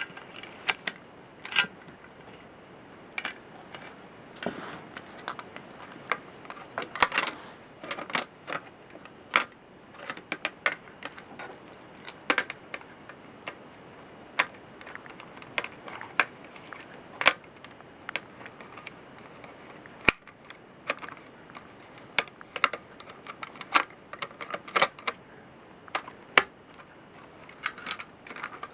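Irregular light clicks, taps and small knocks of something being handled, scattered unevenly a few at a time over a low hiss.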